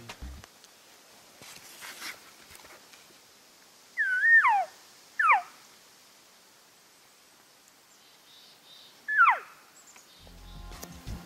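Three short mewing calls of a cow elk, a few seconds apart, each starting high and sliding down in pitch.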